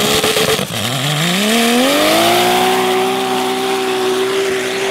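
Turbocharged six-cylinder engine of a sand drag 4x4 launching off the line: a rough, crackly start, then the engine note climbs steadily for about two seconds and holds a steady high pitch at full throttle as the truck runs down the sand strip.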